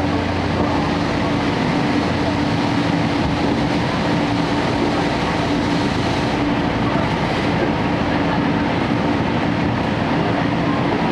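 Steady running noise inside a 12-series passenger coach (SuHaFu 12) moving along the track. Under it runs the constant drone of the coach's underfloor diesel generator engine.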